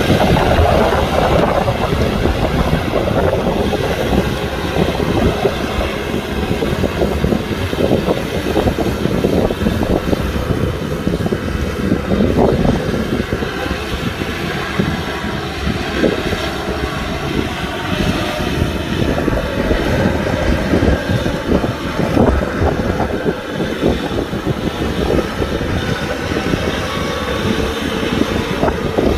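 Kubota tractor's diesel engine running steadily while plowing.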